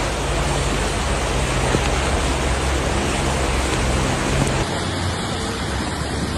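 A steady rush of noise, with a vehicle engine running low underneath; the engine hum drops away about four and a half seconds in.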